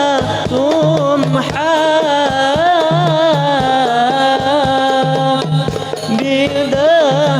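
Sholawat music: an ornamented melody line with wavering, gliding notes over a steady hand-drum rhythm.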